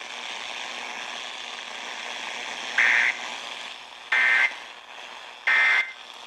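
Weather radio hissing with static after a spoken alert, then three short data bursts about a second apart: the EAS/SAME end-of-message code that closes a NOAA Weather Radio alert.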